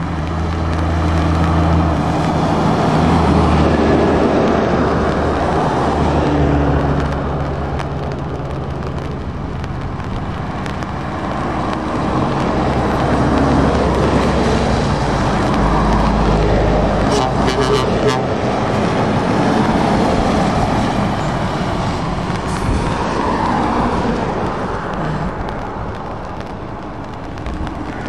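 Heavy trucks, an ERF EC11 and Scania tractor units among them, driving past one after another on a wet road: diesel engines running with a low drone that swells and fades as each truck goes by, over the hiss of tyres on the wet surface.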